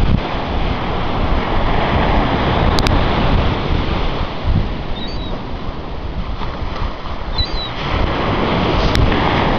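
Ocean surf breaking and washing up the beach, with wind buffeting the microphone in low rumbling gusts. A few faint high chirps come through about halfway and again near the end.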